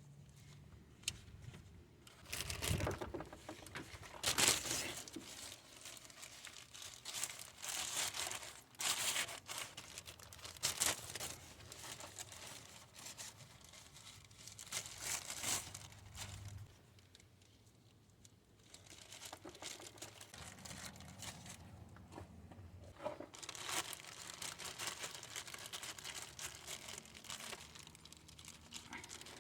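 Hands working on a car's radiator and its hoses: irregular bursts of rustling, scraping and crinkling with sharp clicks of parts and tools, easing off for a quieter stretch past the middle.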